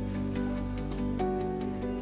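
Background music: soft, calm instrumental with sustained notes and a light ticking beat.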